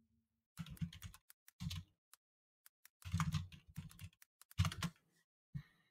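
Typing on a computer keyboard: quick runs of keystrokes with short pauses between, starting about half a second in.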